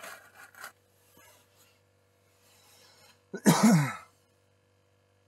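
A person coughs once, loudly, about three and a half seconds in, with some faint handling rustle near the start. Under it runs the faint steady hum of a minnow-bucket bubbler (aerator).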